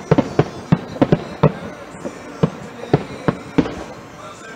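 Aerial fireworks shells bursting in an irregular, rapid string of sharp bangs, often two or three a second, with a short lull near the end.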